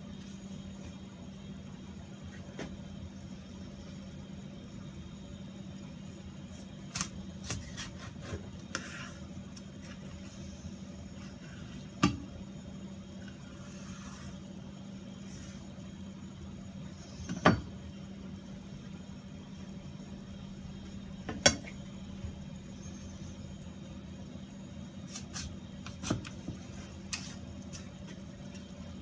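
Occasional sharp knocks and clicks of a knife and tuna against a cutting board, the loudest three spread out around the middle, over a steady low machine hum.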